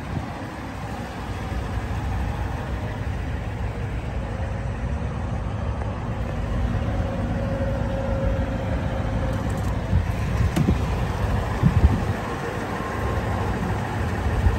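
Toyota Tundra V8 engine idling steadily, a low even rumble, with a few knocks on the microphone in the later part.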